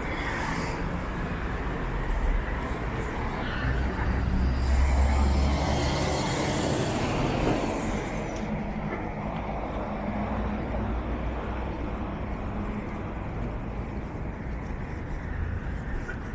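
Street traffic, with a large vehicle passing close by from about four to eight seconds in, its low rumble the loudest sound.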